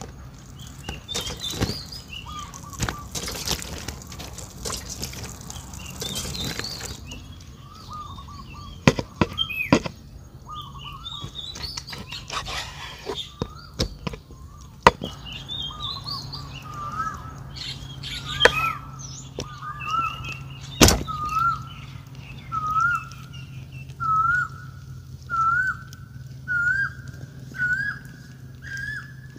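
A bird calling a short, upward-hooked note over and over, about once a second, creeping slightly higher in pitch in the second half. Scattered clicks and knocks from a knife and hands working a raw beef cut on a wooden chopping board, with one sharp knock about two-thirds through.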